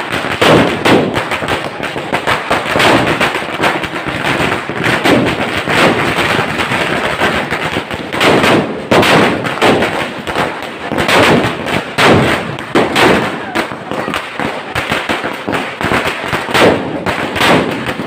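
Firecrackers bursting in quick, irregular succession, many sharp bangs a second with a few louder bursts among them, over crowd voices.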